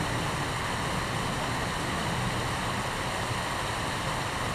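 Steady rushing noise with no distinct events, such as running water or wind.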